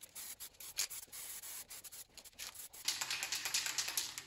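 Aerosol spray-paint can hissing in short, uneven bursts, with a louder spray about three seconds in that stops abruptly just before the end.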